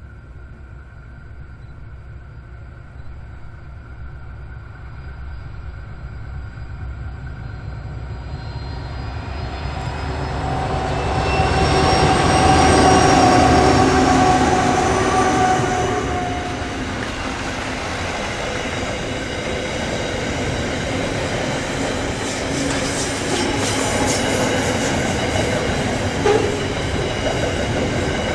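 Diesel freight locomotives approaching and passing, their engine note growing louder to a peak about halfway through and then dropping away. They are followed by the steady rolling rumble and wheel clatter of double-stacked intermodal container wagons going by.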